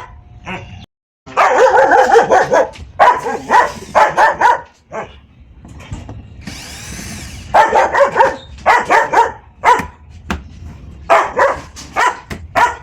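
A dog barking repeatedly in loud bursts of barks, with a short whirring hiss about seven seconds in.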